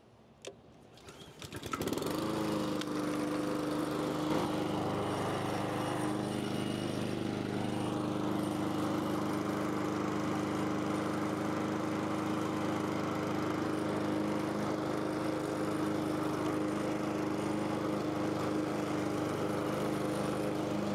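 Gas walk-behind lawn mower started with a pull of the recoil cord, the engine catching about two seconds in and then running steadily.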